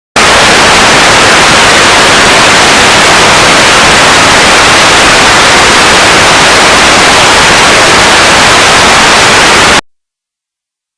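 Loud, even static hiss like white noise, spread evenly from low to high pitch. It starts abruptly just after the beginning and cuts off suddenly about a second before the end.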